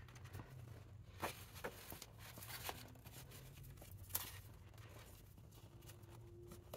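Faint rustling and handling of paper craft supplies, with a few soft taps, the clearest about four seconds in, over a low steady hum.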